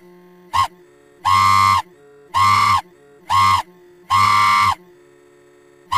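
A snippet of cartoon soundtrack heavily slowed down by an audio-stretch app, turned into loud buzzy held tones that pulse on and off about once a second over a low steady hum.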